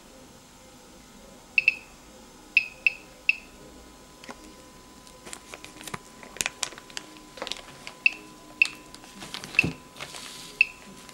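Homemade Geiger counter's beeper giving short, high beeps at irregular intervals, about nine in all, each one a count registered by the SBM-20 Geiger–Müller tube; a low count rate. In the middle stretch, crinkling and light knocks of a plastic bag being handled sit under the beeps.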